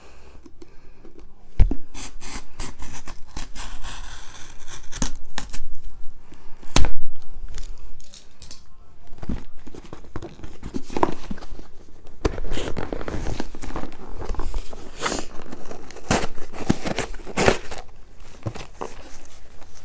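A cardboard box being opened by hand: tape cut and torn, with paper rustling and several sharp knocks and clicks, the loudest about seven seconds in.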